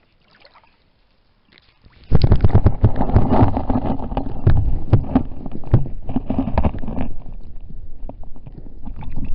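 A camera submerged in creek water: after a quiet start, loud muffled water noise sets in about two seconds in, full of sharp knocks and clicks as the housing moves about underwater.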